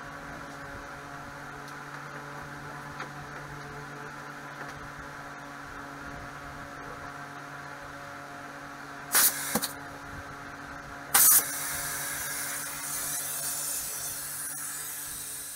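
Air-Lift venturi vacuum bleeder on compressed air: two short, loud blasts of air about nine and eleven seconds in, then a steady hiss of air rushing through the venturi as it pulls a vacuum on the Porsche 996 Turbo's coolant system. A steady hum lies under it throughout.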